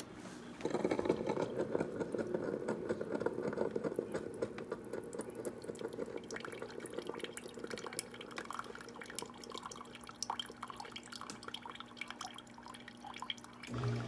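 Ninja Specialty Coffee Maker brewing over ice: coffee streams and drips from the brew basket into a tall cup of ice. It starts suddenly about a second in and thins out toward the end.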